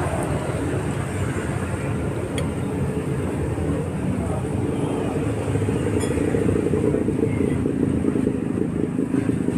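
Street traffic noise: a motor vehicle engine running close by, getting louder in the second half, with people talking in the background and a couple of light clicks.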